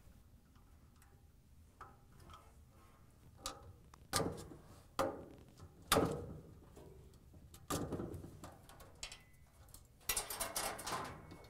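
Sharp metallic clicks as wire spade connectors are pried off the washer motor switch's terminals with a flat-blade screwdriver, with light handling of the wires in between. There are three clicks about a second apart, another a little later, and a quick cluster of rattling clicks near the end.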